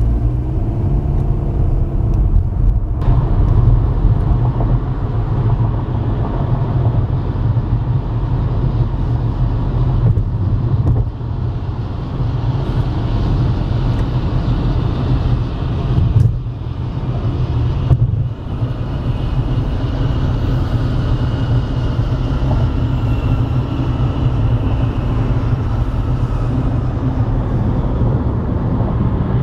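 Steady low rumble of road and engine noise inside a moving car at freeway speed, with a few brief dips and a faint whine slowly climbing in pitch in the last third.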